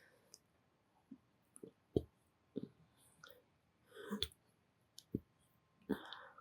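Close-miked mouth sounds: irregular short clicks and smacks of the lips and tongue, the sharpest about two seconds in.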